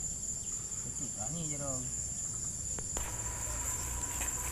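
Steady, high-pitched chorus of insects, crickets or cicadas, droning without a break. A faint voice comes in about a second in.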